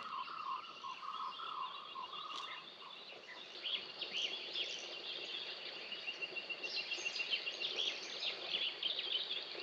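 Several wild birds calling: a run of repeated, arched mid-pitched notes for the first two seconds or so, and many quick high chirps and a high pulsing trill throughout.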